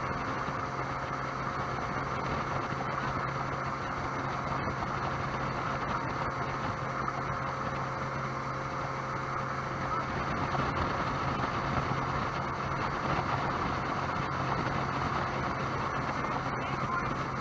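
Sea-Doo jet boat's engine running steadily under way, a constant low drone mixed with the rush of water past the hull.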